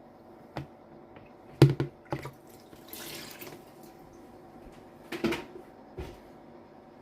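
A series of sharp knocks and clatters from objects being handled, the loudest cluster about one and a half to two and a half seconds in and another near five seconds. A short hiss falls between them, and a steady low hum runs underneath.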